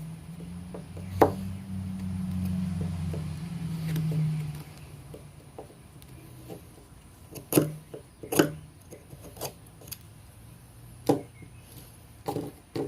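Sharp wooden knocks, about six spread across several seconds, as a TOPS Bull Trout fixed-blade knife is driven into hard seasoned oak. A low steady hum runs under the first four seconds and then stops.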